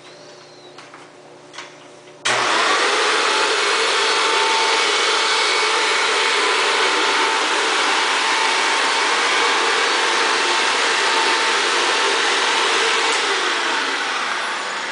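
Upright vacuum cleaner switched on about two seconds in, its motor coming straight up to a loud, steady whir. Near the end the sound tapers off as the motor winds down.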